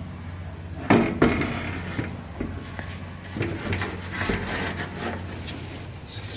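Handling noise: two sharp knocks about a second in, then scattered clicks and rustling of things being moved, over a steady low hum.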